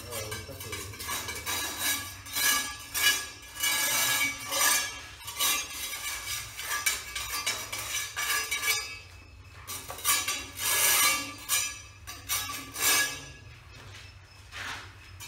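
A small hand trowel scraping and clinking against a rough concrete floor in quick, irregular strokes, with a couple of brief pauses.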